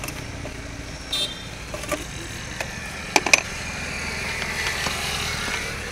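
A metal hand tool clicking and clinking against the clutch cylinder fittings under a Mahindra Scorpio's bonnet, a few sharp clicks with a short metallic ring at one of them. Steady vehicle and traffic noise runs underneath and swells a little near the end.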